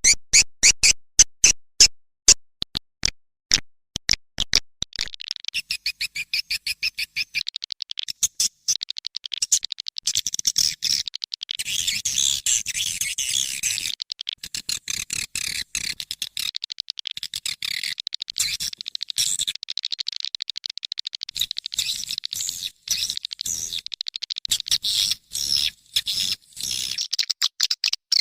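Recorded swiftlet lure call used to draw swiftlets into a nest house. It starts as a rapid series of sharp clicks, about three a second, and about five seconds in gives way to dense, high twittering chirps.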